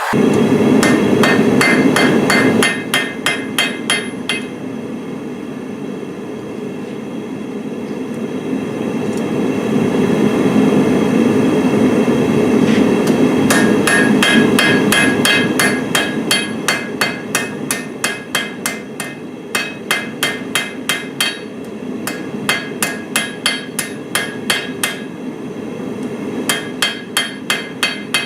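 Hammer striking hot steel on an anvil in quick, even blows, about three a second, each with a short ring, as an old file is drawn out into a fire steel. The hammering stops for several seconds in the middle and then resumes, over a steady low rushing noise.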